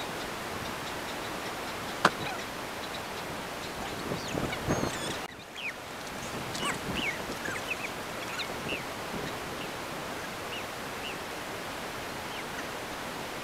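Outdoor ambience: a steady hiss with small birds chirping in short high calls through the second half, and a single sharp click about two seconds in.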